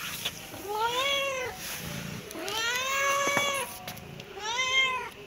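Young tabby-and-white cat meowing three times, each call rising then falling in pitch, the middle one the longest.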